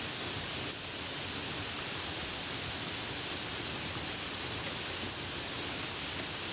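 Steady rain falling, an even hiss with no thunder and no changes.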